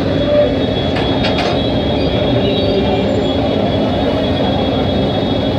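Backhoe loader's diesel engine running steadily as its hydraulic arm lifts and swings the bucket, with two brief knocks about a second and a half in.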